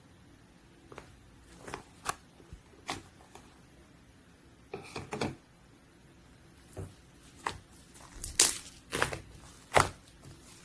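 Slime being handled: scattered sticky pops and crackles, few at first and coming closer together and louder from about eight seconds in.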